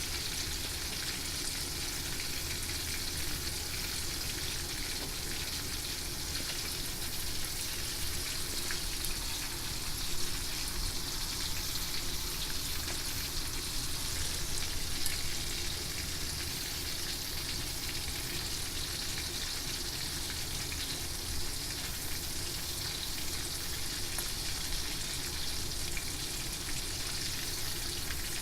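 Horse mackerel frying in hot oil: a steady sizzle with small pops.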